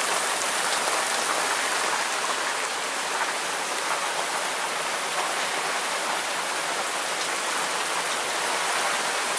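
Rain pouring steadily onto a sailboat at anchor, hissing evenly on the deck, the wheelhouse roof and windows, and the sea around the boat.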